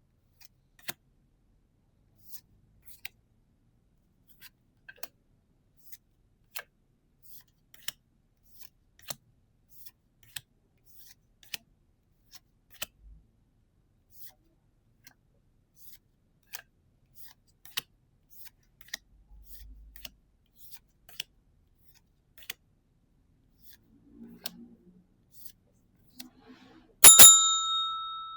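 Pokémon trading cards handled one at a time during pack opening, making short sharp clicks about one and a half times a second. Near the end there is a single loud, bright ringing ding that fades away.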